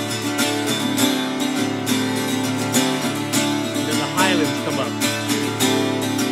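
Steel-string acoustic guitar with a capo, strummed in a steady rhythm as an instrumental song with no singing.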